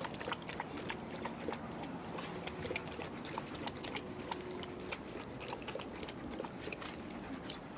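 Dense small clicks and taps: dogs' claws on a wooden deck and a golden retriever lapping water from a bowl.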